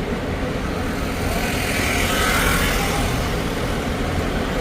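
Hop-on, hop-off sightseeing bus running through city streets, heard from on board: a steady low engine and road rumble, with a swell of louder hiss about two seconds in.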